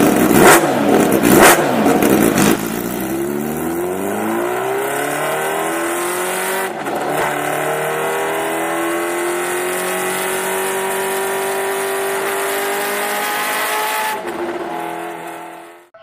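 A vehicle engine, revved hard a few times, then accelerating with its pitch climbing smoothly before it holds a steady note. It fades and cuts off near the end.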